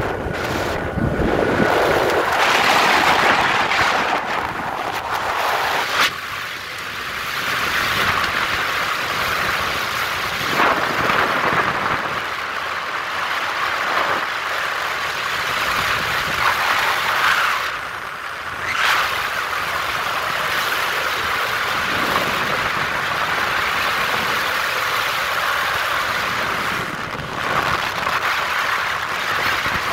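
Rushing wind and road noise from a motor scooter ride at highway speed, rising and falling as the airflow over the microphone changes.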